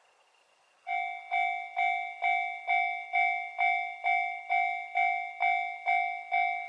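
Japanese railway level-crossing alarm starts ringing about a second in: even, bell-like strikes about twice a second, each dying away, signalling that a train is approaching and the crossing is activated.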